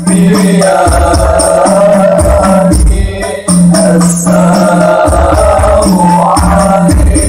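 Men's voices chanting an Arabic salawat (praise of the Prophet) through a PA, with percussion underneath; the sung line breaks briefly about three seconds in.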